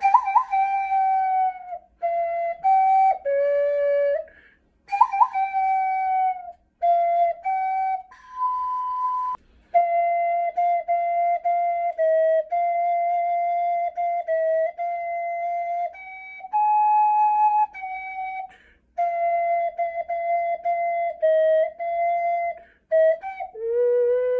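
A 3D-printed ocarina playing a slow melody of held notes in phrases, with short breaks between them. It has a clear, pure tone, and it settles on a lower held note near the end.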